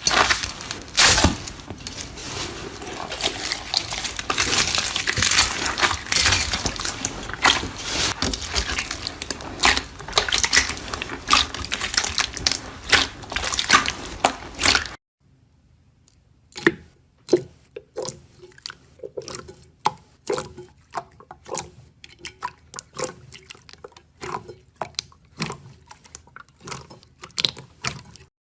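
Slime being squished and pressed by hand: dense wet, sticky clicking and squelching. About halfway through it cuts off, and a quieter clip with sparse pops and crackles follows.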